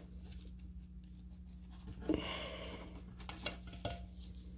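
Gloved hands working a power steering line off the steering rack's fitting: light rustling about two seconds in and a few small metal clicks, over a steady low hum.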